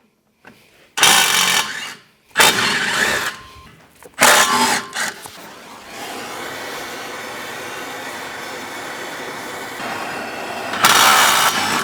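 Power tool run in short bursts of about a second each, four times, working on the truck's drive shaft bolts to get the drive shaft off. Between the last bursts there is a steady fainter noise.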